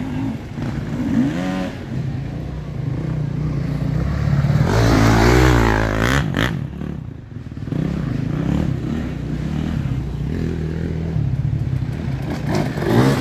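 Enduro dirt bike engines revving hard as riders climb a muddy hill, the revs rising and falling as the wheels slip for grip. Loudest about five seconds in, when one bike climbs close by.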